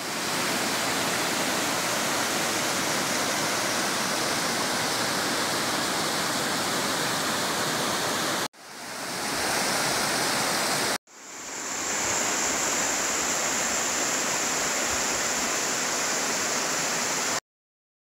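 Whitewater rushing down a rocky cascade: a steady, even rush, cut into three takes that break off briefly about eight and a half and eleven seconds in, and that stops abruptly shortly before the end.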